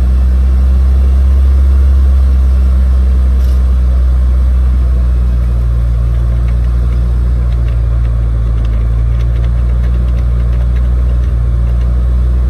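Supercharged 2.0 L LSJ Ecotec four-cylinder in a Chevy Cobalt SS running steadily, held at a fast idle of about 2,000 rpm. It is in a break-in run just after a motor swap, held there to seat the piston rings.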